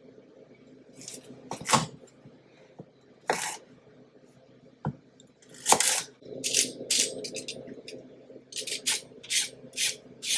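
Chef's knife chopping through a raw carrot onto a wooden cutting board: a handful of separate chops. From a bit past halfway, quick scraping strokes of a vegetable peeler along the carrot, about two or three a second.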